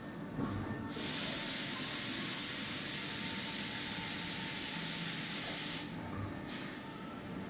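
Steady hiss of air or coolant blowing inside a DMG DMF 300 Linear vertical machining centre, starting about a second in and cutting off suddenly about five seconds later, over the running machine's steady hum.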